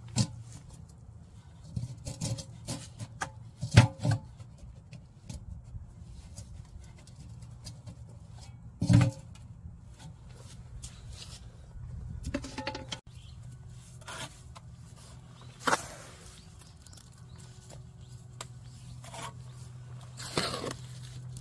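Scattered knocks, clicks and scrapes of handling an aluminium pot on a freshly mortared cement-brick stove, the loudest about 4 and 9 seconds in, over a steady low hum.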